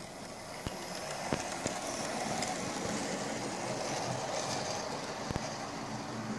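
Hornby OO gauge model Flying Scotsman locomotive and coaches running along the track: a steady motor and wheel hum that builds over the first couple of seconds, with a few sharp clicks from the wheels on the rails.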